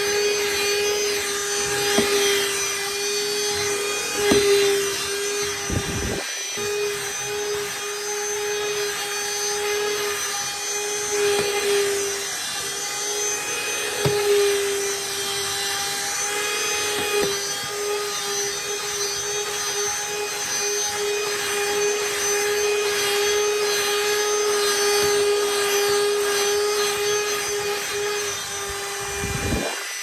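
Dyson DC16 Animal cordless vacuum running steadily with a constant whine, its mini motorised brush head working on stair carpet, with a few knocks along the way. Its motor is one the owner suspects of running slower than it should. Near the end the motor is switched off and spins down.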